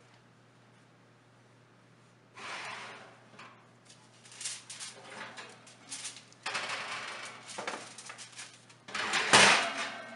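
Foil-covered glass baking dish pulled out of an oven over the wire rack and set down on the open oven door: bouts of scraping and rattling begin about two seconds in, and the loudest clatter comes near the end as the dish is set down.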